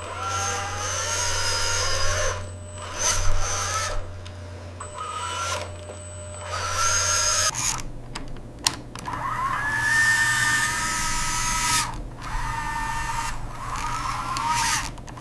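Small electric motors whining in stop-start runs of a second or two, the pitch gliding up and down, over a low steady hum that shifts about halfway through.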